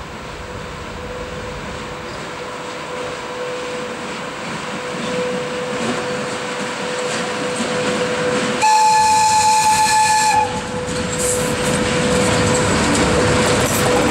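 VL80K twin-section AC electric locomotive hauling a freight train, its running noise growing steadily louder as it approaches and draws alongside. About nine seconds in it sounds its high-pitched whistle once, a single steady note held for under two seconds.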